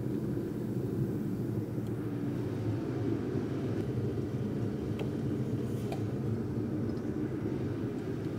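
Steady low roar of a forge and shop machinery running, with a few faint metal clinks partway through.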